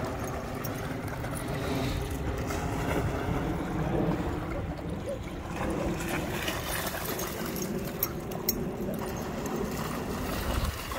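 Water splashing and sloshing steadily as a dog plays in it.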